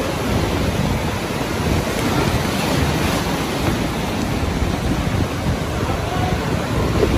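Rough, storm-driven sea surf breaking and washing up the shore in a steady, dense rush, with wind buffeting the microphone.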